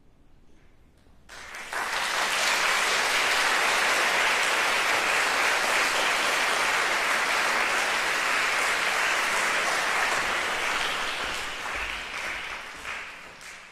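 Audience applauding, breaking out about a second in, holding steady, and thinning out near the end.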